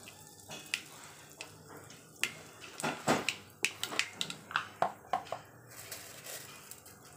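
Mustard and fenugreek seeds popping in hot oil in a stainless steel kadai during a tempering (tadka): irregular sharp pops over a faint sizzle, coming thickest in the middle. The popping shows the oil is hot enough.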